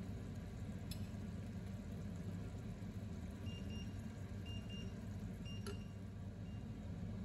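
Steady low kitchen hum, with two light clicks of a serving spoon against a plate, about a second in and again near the six-second mark. A few faint, short high beeps fall in the middle.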